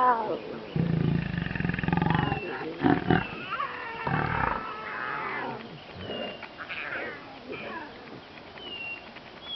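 Lions of a pride growling and snarling at each other, deep rumbling calls mixed with higher wavering ones, loudest in the first half and quieter toward the end.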